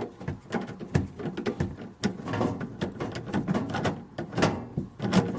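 Irregular clicking and knocking of tools and plastic and metal parts inside a refrigerator as screws are worked out of an inner panel.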